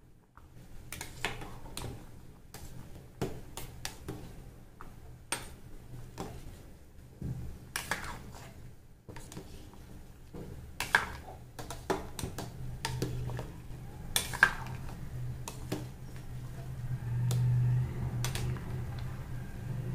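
A metal spoon clinking and scraping against a steel pot while dough balls are turned over in boiling water, in irregular knocks with a steady low hum underneath.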